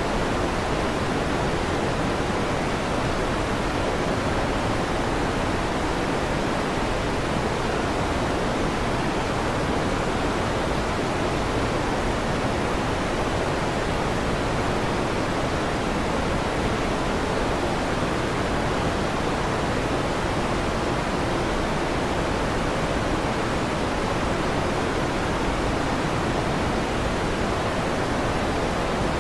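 Electric fan running steadily: an even, unchanging whoosh of noise.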